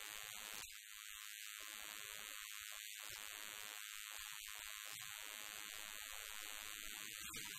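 Faint, steady hiss of background noise, with no distinct events.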